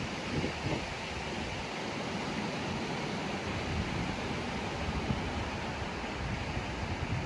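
Steady wash of ocean surf on a beach, with gusts of wind buffeting the microphone as low rumbles.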